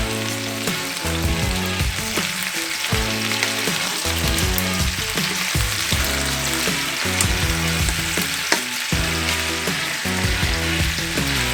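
Chicken thighs sizzling as they fry in hot avocado oil in a metal pan, a steady crackling hiss, with a few sharp clicks of a utensil against the pan. Background music runs underneath.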